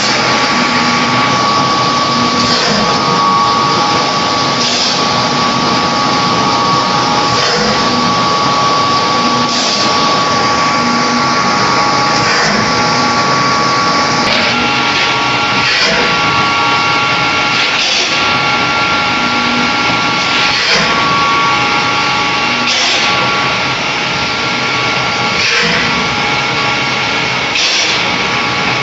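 Egg tray forming machine running: continuous loud machinery noise with a steady whine, broken by a short burst of noise every two to three seconds as it cycles.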